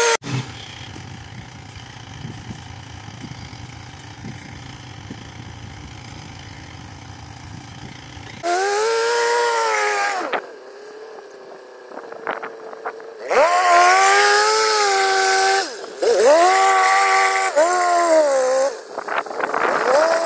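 Tracked rice combine harvester's engine running, at first a steady low hum, then from about eight seconds in revving hard in four surges, each a loud whine that rises in pitch, holds and falls away, as the machine moves under its load of full grain bags.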